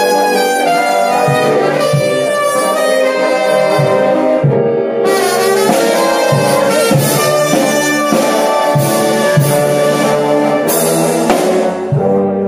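Brass band playing processional music, with a steady low drum beat.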